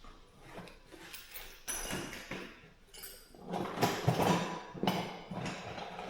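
Light metallic clinks and taps from hand work on a garage door's rollers, becoming a louder, denser stretch of clattering and rattling about three and a half seconds in.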